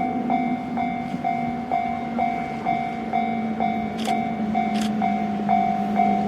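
Japanese railway level-crossing alarm ringing its repeated kan-kan strikes, about two a second.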